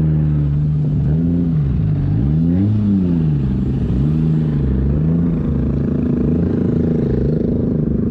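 A car engine revving up and down several times, its pitch rising and falling slowly, then holding steadier near the end.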